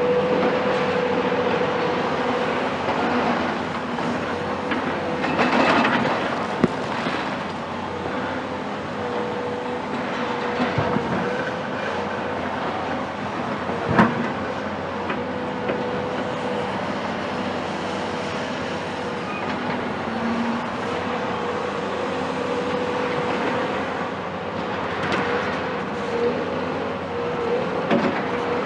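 Cat 374 excavator with its Cat C15 ACERT diesel engine working under load during demolition, a steady high tone running over the engine noise. Sharp knocks and clatter of debris come through now and then, the loudest about 14 seconds in.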